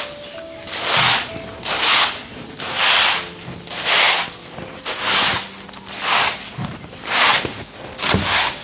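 Dried-grass broom sweeping in steady swishing strokes, about one a second.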